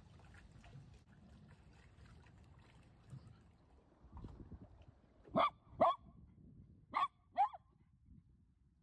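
Miniature schnauzer barking: two short barks in quick succession about five seconds in, then two more about a second later.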